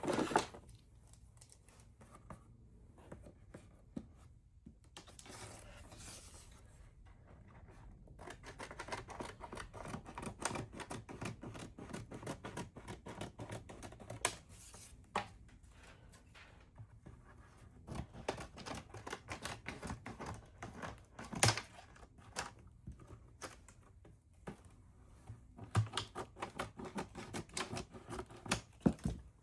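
Scissors cutting, in runs of quick snips with quiet pauses between, and a few louder knocks of things being handled on the work surface.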